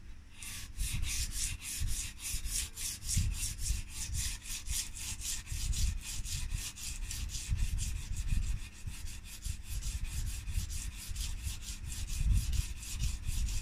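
Abrasive paper rubbed by hand back and forth along a long flat metal bar, a steady rasping stroke about four times a second, polishing the flat face.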